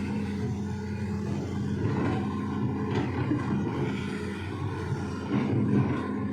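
A vehicle engine running steadily at low revs: an even, unchanging drone.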